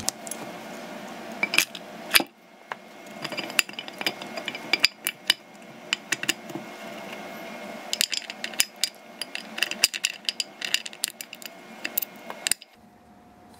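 Steel transmission parts clinking as they are handled: the T56 reverse idler gear with its new needle bearing and its mounting bracket, worked by hand and set into the aluminium tail case. Many short, sharp metallic clicks and clinks, busiest in the second half.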